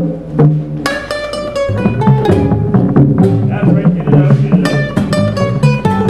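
Music: quickly plucked string notes ring out over a low, busy bass line, with sharp attacks several times a second.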